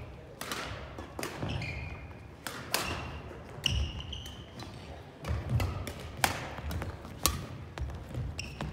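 Badminton rally: sharp racket-on-shuttlecock hits about once a second, with short squeaks of sneakers on the wooden court floor and low thuds of footsteps.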